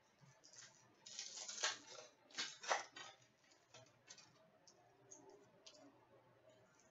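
Faint handling noise of a trading card pack: short crinkling rustles of the foil wrapper in the first few seconds, then light ticks of cards being flicked through.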